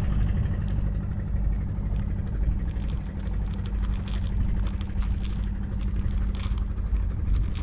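An engine running steadily with an even, low-pitched drone.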